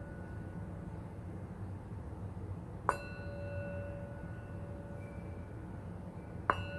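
A ringing metal chime struck twice, about three and a half seconds apart. Each strike rings on with the same few clear pitches that slowly fade, over a steady low hum.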